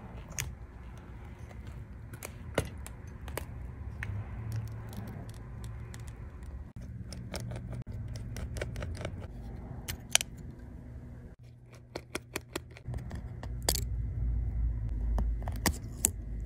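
Scattered sharp clicks and small metal taps of hand tools working inside an iPad: a precision screwdriver on the screws of the internal shield plates and connectors being handled. A steady low hum lies underneath.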